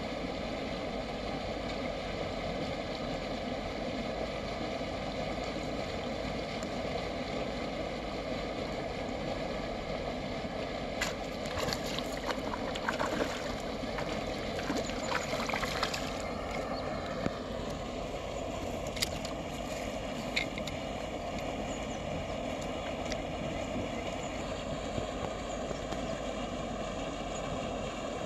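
A steady mechanical drone, with short sharp splashes about halfway through as a hooked fish thrashes at the water's surface on the line.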